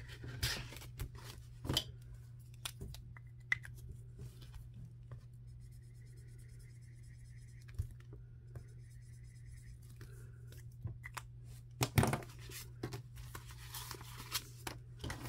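Paper money, plastic binder sleeves and a laminated tracker sheet being handled: rustling and light clicks, with a quieter stretch of marker writing in the middle and a sharp click about twelve seconds in. A steady low hum runs underneath.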